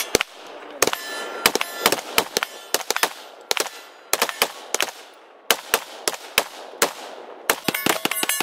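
Rapid semi-automatic gunshots, about twenty, first from a pistol and then from an AR-15-style rifle. Several shots are followed by the brief ring of hit steel targets. A fast string of shots comes near the end.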